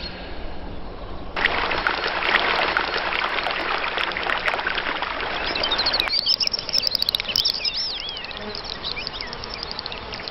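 A dense, insect-like chirring with fast fine pulses starts about a second in and cuts off suddenly about halfway through. Birdsong follows: quick whistled phrases that rise and fall.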